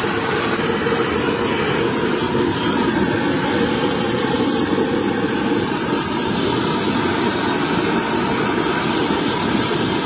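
Gas torch flame burning against a steel pipe flange to preheat it before welding: a steady rushing noise with no breaks.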